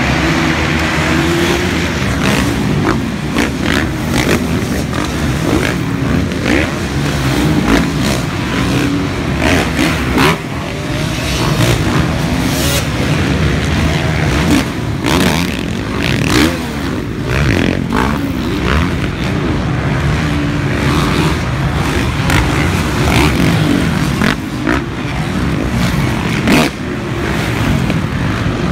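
Motocross dirt bike engines revving hard as the bikes race past, their pitch rising and falling as riders open and close the throttle, with several bikes heard at once.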